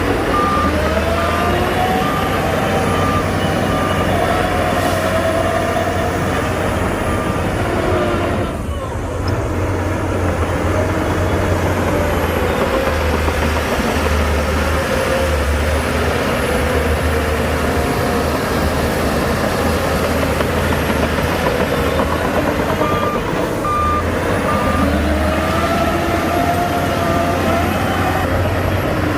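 Heavy diesel engine of a Shantui DH17C2 bulldozer working under load, revving up and down. A reversing alarm beeps steadily for the first several seconds and again briefly about three-quarters of the way through.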